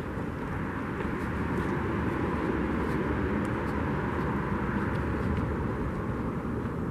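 A steady, distant rumble with hiss, with no distinct strokes or tones, growing a little louder after the first second and then holding.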